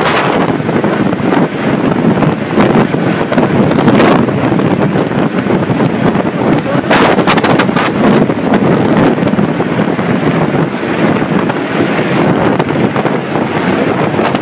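Helicopter rotor downwash buffeting the microphone: a loud, steady rushing roar with ragged flutter, mixed with the hovering helicopter's noise.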